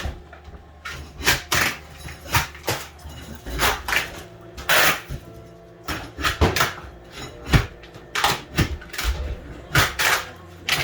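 Irregular knocks, bangs and short scrapes of kitchen demolition work, about one or two a second, with music playing in the background.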